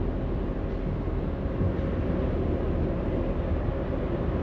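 Steady low rumble of a passenger ferry's engines under way, heard from on board, with a faint steady hum over it.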